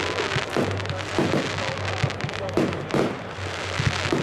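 Fireworks going off: a run of sharp bangs, about six strong ones in four seconds, with finer crackling between them. Music plays underneath.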